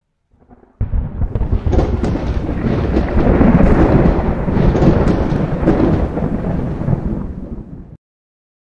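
Rolling thunder sound effect, a loud rumble with crackling, that starts suddenly about a second in and cuts off abruptly near the end.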